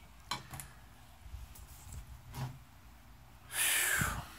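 A man's short, loud breath out, lasting about half a second near the end, after a few faint clicks.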